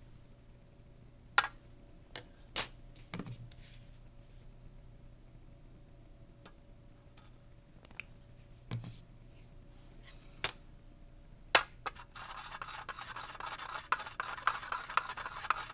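Several separate sharp clicks and taps, then, for the last few seconds, a continuous scratchy rubbing as a stirring rod stirs calcium oxide powder and water in a small plastic well.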